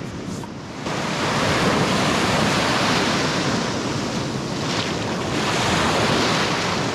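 Shallow ocean surf breaking and washing around close by, with wind on the microphone; it comes in suddenly and loud about a second in, after a quieter start.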